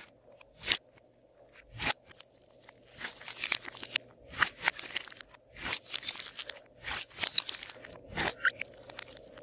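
Glossy slime being squeezed and kneaded by hands in a glass dish, crackling and popping as air pockets burst. A few single pops come in the first two seconds, then clusters of crackles come about once a second.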